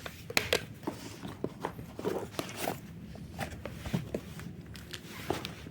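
Irregular clicks, taps and knocks of small hard objects being handled, with a few soft rustles.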